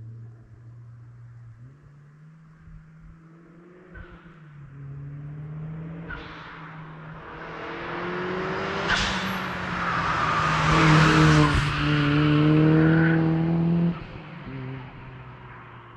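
Turbocharged four-cylinder engine of a Mazda Miata with a small TD04 turbo driving past under hard acceleration, growing louder as it approaches and loudest about 11 to 13 seconds in. Near the end the throttle is lifted suddenly and the engine note drops away as the car moves off.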